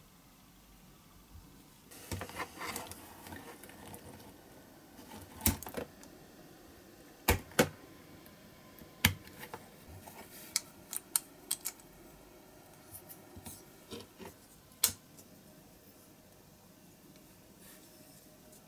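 Small metal and plastic parts of a diecast toy Jeep handled and fitted together by hand, with a small tool: scattered sharp clicks and taps, a few louder than the rest, stopping a few seconds before the end.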